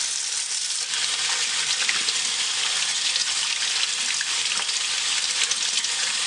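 Water running from a faucet into a sink while soapy hands are rubbed and rinsed under the stream, a steady splashing hiss that fills out about a second in.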